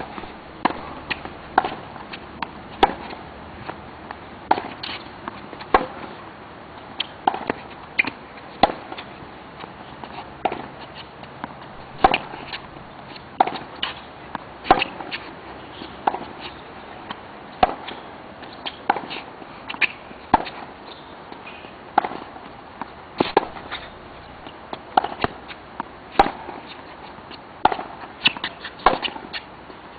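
Tennis balls struck by rackets and bouncing on the court during a rally: a steady series of sharp pops, about one a second.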